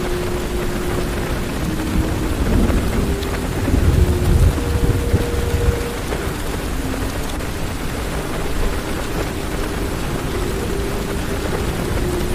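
Heavy rain falling on a car's roof and glass, heard from inside the car. A low rumble of thunder swells from about three and a half seconds in and dies away by about six seconds.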